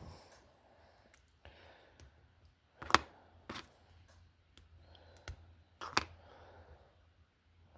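Scattered clicks and light taps of small parts being handled as a slot car motor is taken back apart; the two sharpest clicks come about three and six seconds in.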